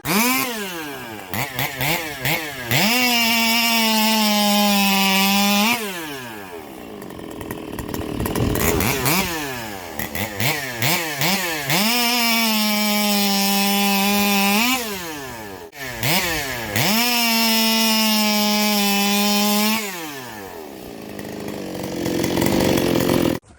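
Custom Stihl chainsaw engine revved hard over and over: the pitch climbs fast and holds at full throttle three times, about three seconds each, dropping back between holds and blipped in short bursts in between.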